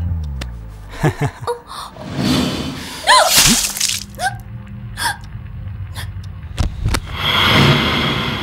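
A woman's sharp gasp with a short gliding cry about three seconds in, from a woman whose throat has been slashed with a knife. A low steady hum follows, with a few sharp clicks and a swelling rush of noise near the end.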